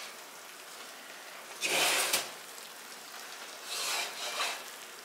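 Two short scraping rubs, one about two seconds in and a softer one near four seconds, as the oven rack holding a ceramic casserole dish is handled with an oven mitt.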